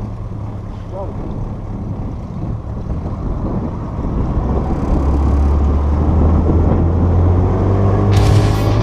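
Boat motor running, growing louder and rising in pitch from about four seconds in as it picks up speed. Music comes in near the end.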